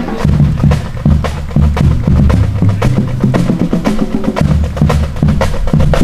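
Marching band drumline playing a marching cadence: rapid snare and rim clicks in a steady rhythm over low bass drum notes.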